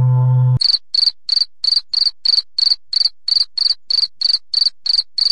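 Cricket-chirping sound effect: a steady train of short, high chirps, about three a second, over dead silence. It is the comic 'awkward silence' cue. It starts just after a low held musical note cuts off, about half a second in.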